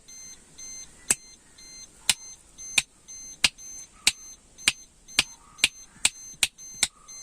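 Sharp clicks at irregular spacing, roughly two a second, over faint high electronic beep tones that pulse on and off in a steady repeating pattern.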